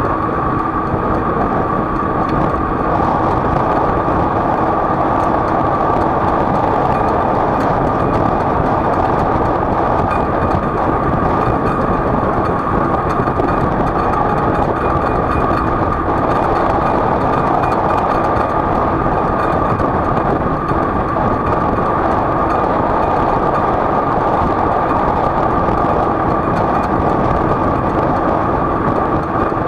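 Steady running noise of a vehicle travelling at a constant speed: a continuous rushing drone with a steady high hum, unchanging throughout.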